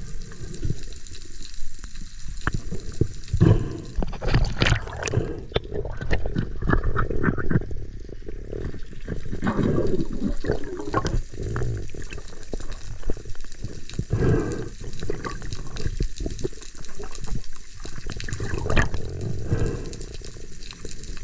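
Water sloshing and gurgling in irregular surges, with scattered sharp clicks.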